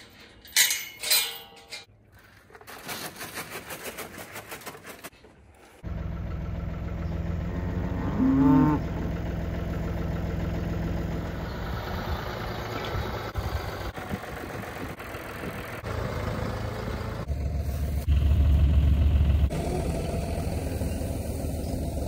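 A John Deere loader tractor's diesel engine comes in suddenly about six seconds in and runs steadily, getting louder for a couple of seconds near the end. A cow moos once about eight seconds in. Before the engine there are a few seconds of scattered short noises.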